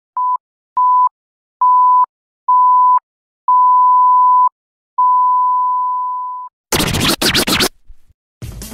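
A run of electronic beeps at one steady pitch, each longer than the last, the final one held for about a second and a half and fading away. About two-thirds of the way in comes a short noisy, crackling burst, and electronic background music starts near the end.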